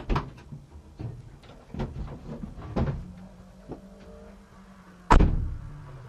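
Knocks and clunks inside a stationary Vauxhall Astra rally car as the driver climbs out, then a loud door slam about five seconds in, over a low steady hum.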